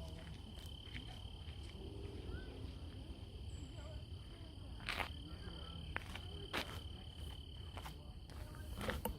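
An insect trilling in a faint, steady, high continuous tone. A few sharp clicks come about halfway through and near the end, and there are faint short chirps.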